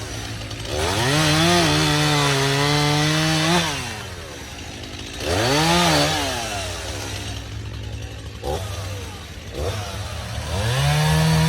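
Chainsaw idling and revving up to full throttle three times. The first time it holds high for about three seconds, the second is a brief rev, and the third comes near the end.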